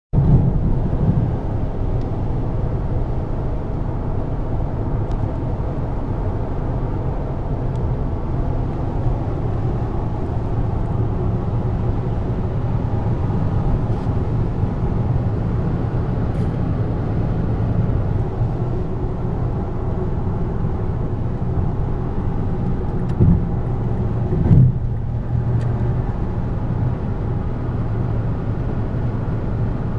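Steady low rumble of road and engine noise inside a car's cabin as it drives along a freeway. Two brief thumps come about three-quarters of the way through.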